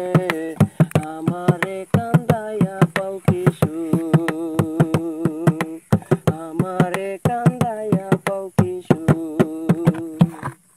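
Instrumental close of a Bengali folk song: a melody line over frequent, sharp drum strokes, cutting off abruptly near the end.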